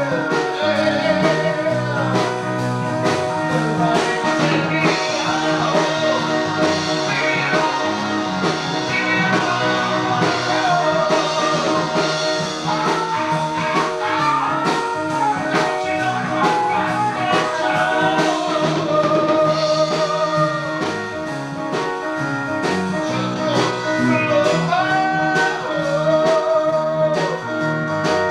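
Blues-rock song playing steadily: a sung lead vocal with wavering held notes over guitar and a drum kit keeping a regular beat.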